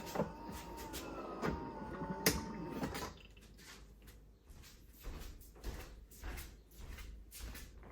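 A drawn-out creak for about three seconds, then a run of light clicks and taps, as of a cupboard or door being handled.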